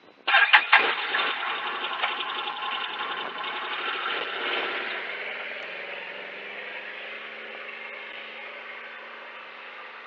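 An engine starts abruptly and runs loudly with a rapid, rattling pulse for a few seconds. After about five seconds it settles into a quieter, steady hum.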